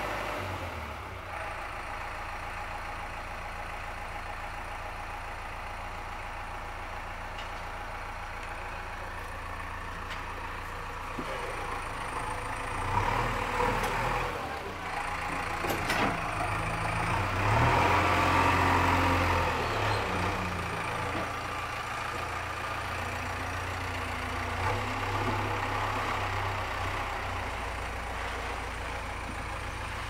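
JCB 3DX backhoe loader's diesel engine running steadily, picking up to a louder, harder-working stretch around the middle, then settling back to a steady run.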